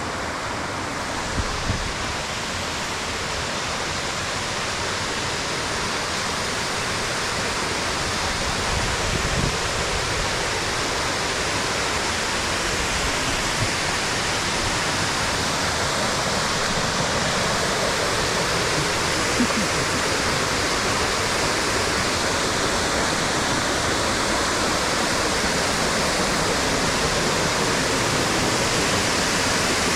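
Waterfall water rushing in a steady, even hiss that slowly grows louder, with a few faint knocks.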